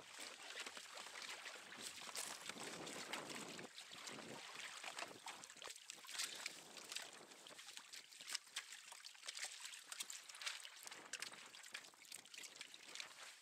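Sea water lapping and splashing against a kayak's hull, an uneven wash broken by many short splashes and light knocks.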